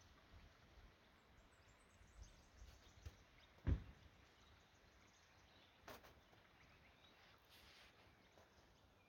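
Near silence: quiet bush ambience with faint bird chirps, broken by one sharp thump a little under four seconds in and a softer click about two seconds later.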